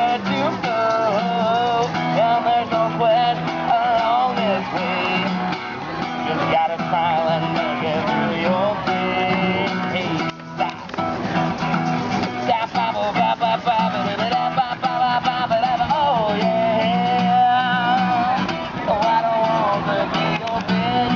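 Music: a guitar playing with a voice singing a wavering, bending melody over it, steady throughout.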